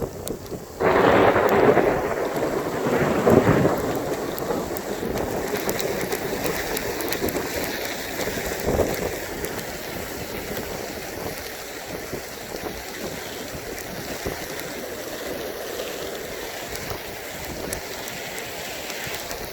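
Thunder: a sudden crack about a second in that rolls on with a second peak and slowly fades, over steady rain.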